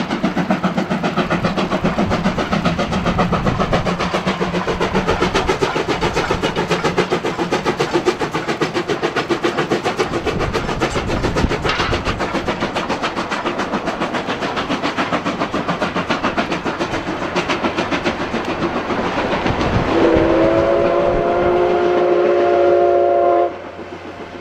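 Steam locomotive C56-160, a small 2-6-0, working hard past with a rapid, steady exhaust beat, along with the clatter of the coach wheels. About twenty seconds in, a whistle sounds one long blast of several tones that cuts off sharply.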